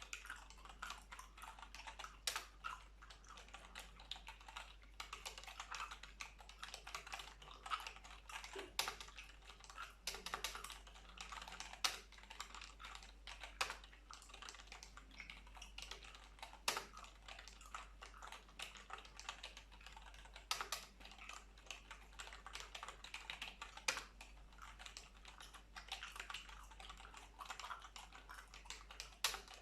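Computer keyboard typing: a continuous patter of key clicks, with a louder key stroke every few seconds.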